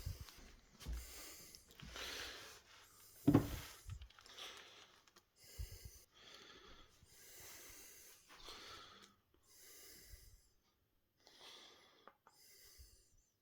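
Soft, breath-like puffs repeating about once a second close to the microphone, with a loud bump about three seconds in.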